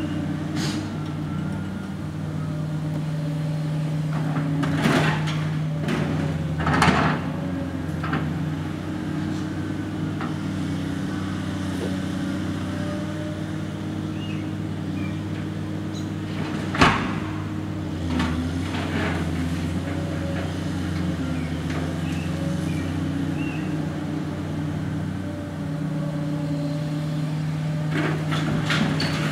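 Cat hydraulic excavator's diesel engine running steadily while its bucket tears through a demolished building, with scattered crashes and clatter of sheet metal and wood debris. A few crashes come early, the sharpest bang a little past halfway, and another cluster of clatter near the end.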